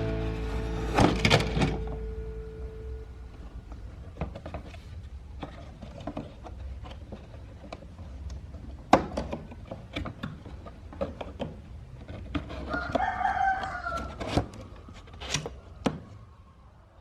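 Scattered light clicks and knocks of small die-cast toy cars being handled and set into a box, with a short pitched call in the background between about 12 and 14 seconds in.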